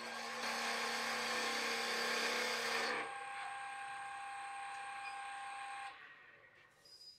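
Nova Neptune Max wood lathe running with a steady motor whine while a turning tool cuts a spinning poplar spindle, a loud steady scraping for about three seconds. The cutting then stops and the motor runs on alone, until the sound drops away about six seconds in as the lathe is switched off.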